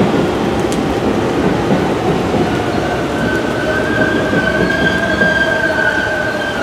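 Steady rain mixed with the rumble of a New York City subway train rolling slowly along the far platform. About three seconds in, a steady high squeal from the train comes in and holds.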